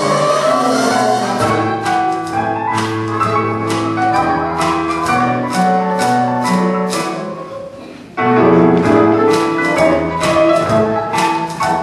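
Show-tune instrumental music from a pit orchestra, with sustained notes and sharp percussive hits. It fades down about seven seconds in, then comes back in loud about a second later.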